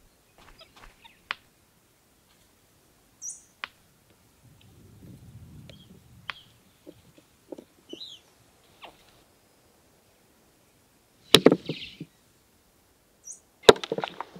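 Bearded capuchin monkey bringing a heavy stone hammer down on a rock anvil to crack a palm nut: two loud, sharp stone-on-stone blows about two seconds apart near the end. Before them come small taps and faint bird chirps.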